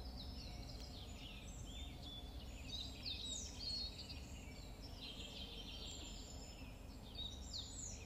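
Pet budgie chirping softly: a quick, irregular run of short high chirps and falling whistle notes, the chattering warble of a budgerigar.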